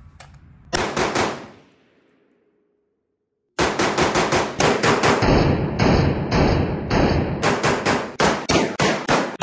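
Springfield Armory M1A SOCOM 16 CQB, a semi-automatic rifle in 7.62 NATO, fired in quick strings. Three shots come about a second in; after a brief silence, a long run of rapid shots follows at about four to five a second.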